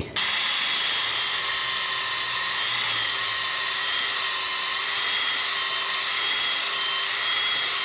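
Cordless drill spinning a small wire brush inside a rusty wheel speed sensor bore, running at a steady speed with a whine. It starts suddenly, and it is scouring out rust buildup so the new sensor will fit.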